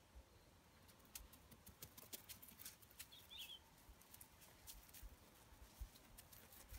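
Near silence with faint, scattered light ticks and pattering that grow more frequent, and one brief high chirp about three seconds in.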